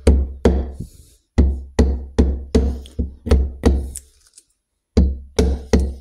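Gearbox mainshaft oil seal being knocked into a Norton Commando's aluminium gearbox casing with the end of a wooden handle. About ten dull, heavy knocks, two to three a second, with a pause of about a second and a half before the last two, as the seal is worked in square and flush with the casing.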